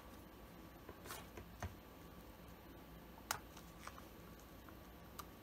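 Small scissors snipping embroidery thread: a handful of faint, sharp clicks spread over several seconds, the clearest a little after three seconds in.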